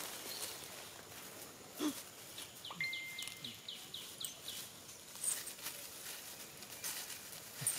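Forest ambience with leaf-litter rustling, and a bird giving a quick run of about eight short descending chirps about two and a half seconds in, with a brief steady whistle alongside.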